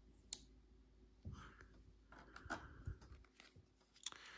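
Faint handling noise from a plastic flip phone: light rustling and a few sharp plastic clicks as its protective film is peeled off and its back cover is taken off.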